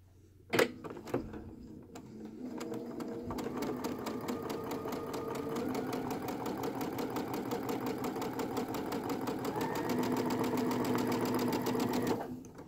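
Electric sewing machine stitching a seam: after a single click, it starts up, gathers speed to a fast, even needle rhythm over a steady motor hum, and stops suddenly shortly before the end.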